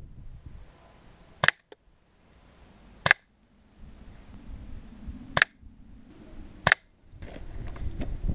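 BSA Scorpion .22 spring-powered air pistol shots: four sharp cracks, roughly one and a half to two seconds apart.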